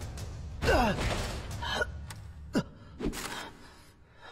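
A young character's pained, straining gasps and cries while he is held at gunpoint and struggling. Several short cries fall in pitch, followed by hard breathing near the end.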